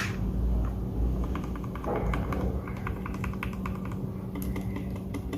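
Rapid typing on a Royal Kludge G68 mechanical keyboard: a quick run of keystroke clicks, several a second, on switches that have been lubed. It opens with one sharper, louder key strike.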